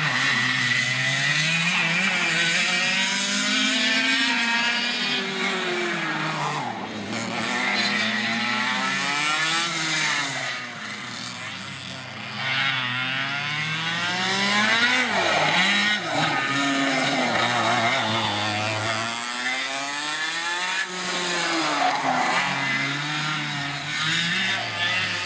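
Go-kart engines lapping the track, several at once. Their pitch keeps rising as they rev up and falling as they back off, and the sound dips for a moment about halfway through.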